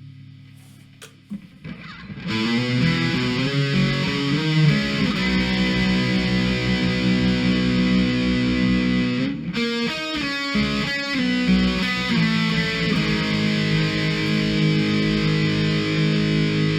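Intro music: distorted electric guitar playing held chords, starting about two seconds in, with a brief break about halfway through.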